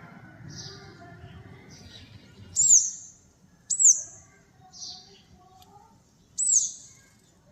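Sparrows chirping: short, separate high chirps about every second, three of them much louder and sharper than the rest.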